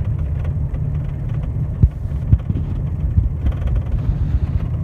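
Steady low rumble of a vehicle on the move, with a few irregular knocks and thumps.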